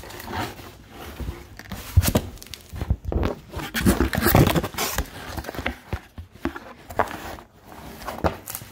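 Cardboard shipping box being opened and handled: flaps scraping and crackling, with irregular knocks and rustles, the busiest and loudest stretch about four seconds in.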